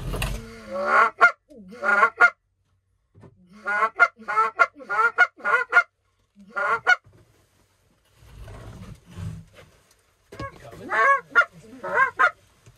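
Goose call blown by a hunter, giving runs of quick Canada-goose honks and clucks separated by short pauses.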